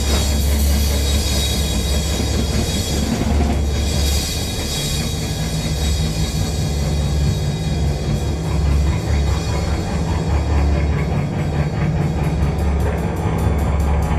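Live, loud improvised heavy rock from a trio of electric guitar, bass guitar and drum kit, playing continuously with a heavy low end and washing cymbals. Near the end the drummer plays fast, evenly spaced cymbal strokes.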